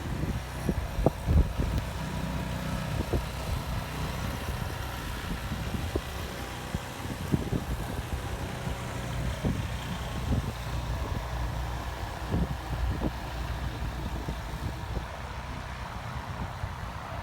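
A vehicle engine running steadily with a low hum. Scattered low thumps come on top of it, loudest about a second in.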